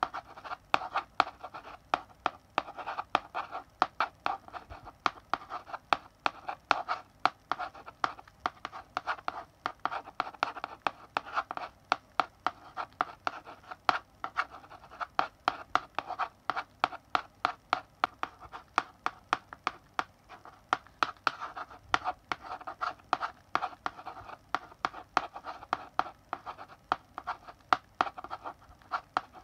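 Chalk writing on a blackboard: a steady run of sharp chalk taps and short scratchy strokes, several a second in uneven clusters, as characters are written.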